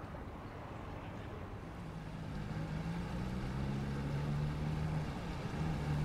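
A motor engine hums steadily, coming in about two seconds in and growing gradually louder, over a steady wash of shoreline noise.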